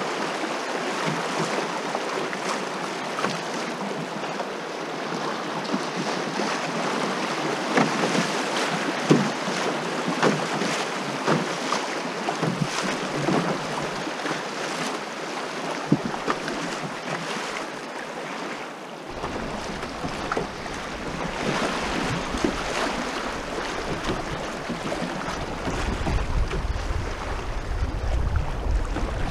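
Shallow river water rushing over riffles and splashing against a canoe's hull as it runs downstream, with many small sharp splashes. Wind buffets the microphone in the second half, heaviest near the end.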